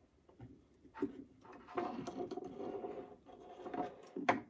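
Hands handling a black plastic mounting platform and its power cord, pressing the cord into a groove: rubbing and rustling of plastic and cable, with a faint squeak in the middle. A small knock about a second in and a sharper knock near the end as parts meet the wooden tabletop.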